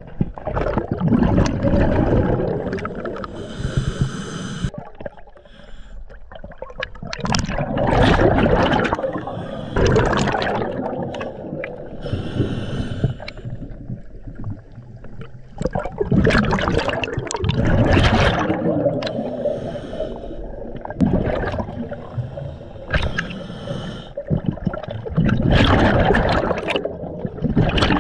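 A scuba diver's regulator breathing underwater: four long bubbling exhalations about eight seconds apart, with shorter hissing inhalations between them.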